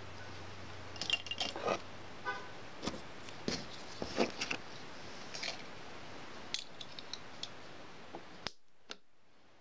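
Small tools being picked up off a desk one by one, a wooden-handled awl, a spool of thread and plastic and metal rulers, with light taps, clicks and clinks. The faint background cuts off suddenly near the end, followed by a couple of last clicks.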